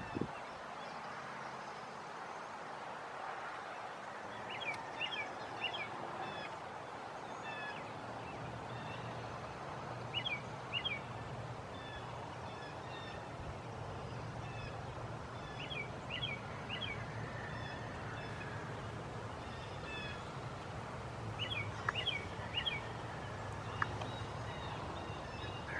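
A small songbird singing a short phrase of three or four quick, high chirps, repeated about every five to six seconds, with a few scattered faint chirps between phrases. Under it there is quiet open-air background with a faint steady low hum.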